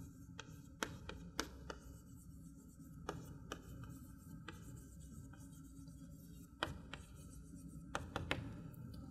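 Chalk writing on a chalkboard: faint scratching strokes broken by scattered sharp taps as the chalk meets the board, the loudest taps about a second in and again near seven seconds.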